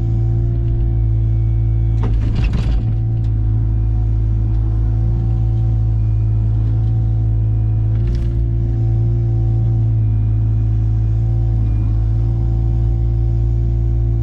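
A large engine running steadily at a constant speed, with two short noisy crashes or crackles, one about two seconds in and another about eight seconds in.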